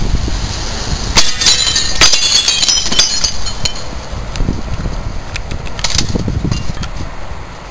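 A window pane being broken out of its frame: a sharp crack about a second in, then glass shards tinkling and clinking for about two seconds as they fall, with a few smaller knocks of glass later. A steady low rumble runs underneath.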